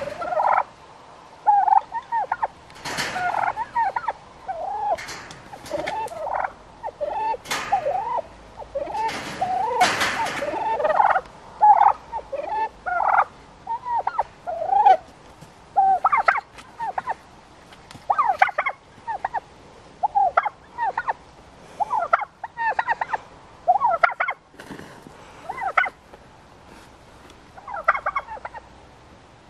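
Two white domestic turkeys calling back and forth: a long run of short, pitched calls broken by several louder rattling gobbles, the biggest a few seconds in and around ten seconds in.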